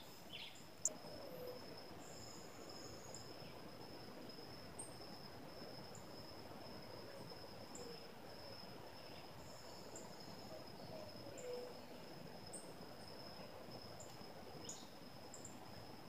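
Steady, high-pitched insect drone from the forest, faint and unbroken. Over it come scattered faint chirps and, a few times, soft falling whistles, with a sharp click about a second in.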